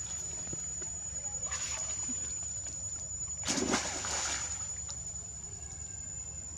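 Water splashing and sloshing as a long-tailed macaque swims and dives in a pond, with a louder splash about three and a half seconds in.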